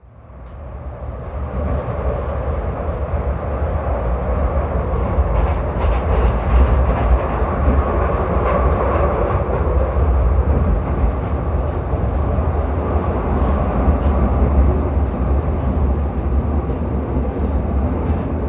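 A train running: a steady, loud rumble with a heavy low drone and rail noise, and a few sharp clicks. It fades in over the first couple of seconds.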